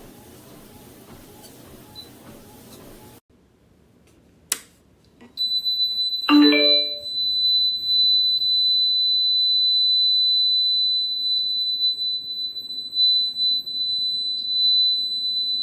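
Goplus folding electric treadmill: a click, a brief lower tone, then the motor running with a steady, loud high-pitched whine. Before that, a faint hum cuts off about three seconds in.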